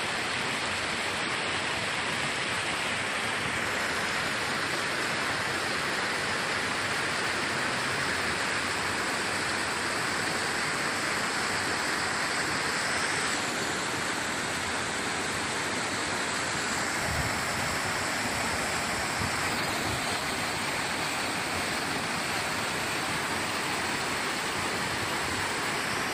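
Shallow stream rushing and splashing over boulders: a steady, even rush of water.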